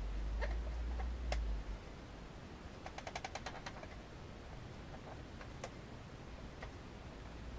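Faint short squeaks of a marker drawing on a latex balloon, scattered singly with a quick run of about eight about three seconds in.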